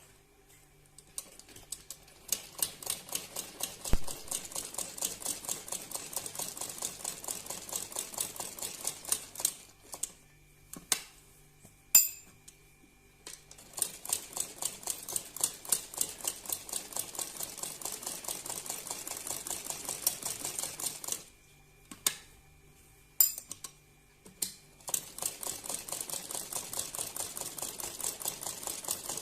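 Sewing machine stitching in a fast, even clicking rhythm, running over an already-sewn decorative line a second time. It stops and starts twice, with a sharp click in each pause.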